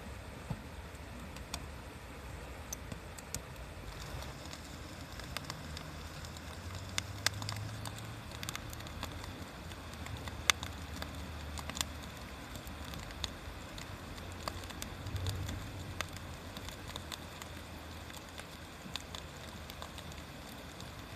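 Wood bonfire crackling, with irregular sharp pops and snaps, the loudest about seven and ten seconds in, over a low steady rumble.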